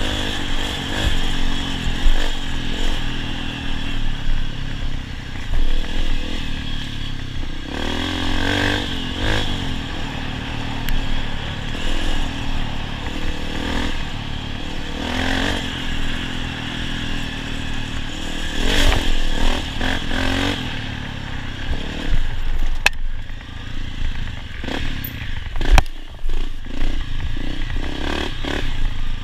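Honda CRF250F dirt bike's single-cylinder four-stroke engine revving up and down as it is ridden off-road, the throttle opened and closed again and again. Clatter from the bike runs under the engine, with two sharp knocks near the end.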